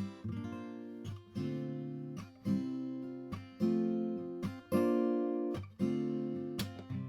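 Collings C100 acoustic guitar with a Sitka spruce top and mahogany back and sides, strummed and picked in a run of chords, each struck and left ringing.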